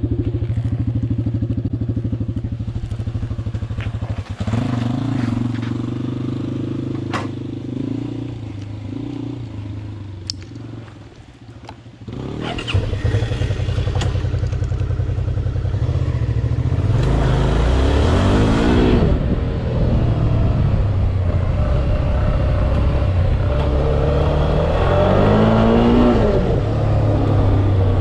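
Motorcycle engine running steadily at first, fading down over several seconds, then suddenly loud again about twelve seconds in as the bike pulls away and rides, its pitch rising and falling with the throttle.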